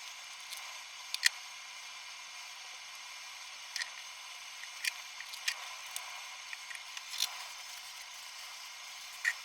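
Scattered light clicks and taps, about eight or ten of them at uneven intervals, over a steady hiss. The loudest comes about a second in and another near the end.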